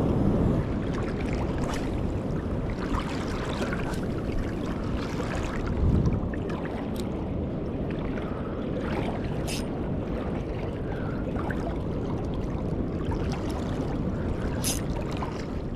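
Steady wash of sea surf mixed with wind noise on the microphone, swelling briefly about six seconds in, with a few faint clicks.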